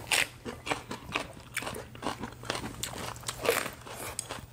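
Close-up crunching and chewing of raw green chili peppers: a string of crisp bites, the loudest right at the start and about three and a half seconds in.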